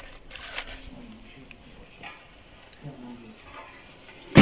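Hands rummaging through a drawer of papers and plastic discs, with light rustling and clattering, then one loud knock near the end as the drawer is pushed down against the floor.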